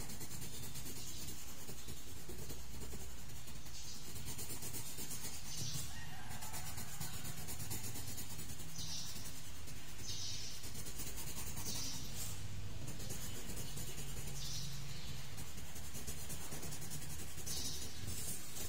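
Coloured pencil scratching on paper in short shading strokes, one every second or two, over a steady low hum.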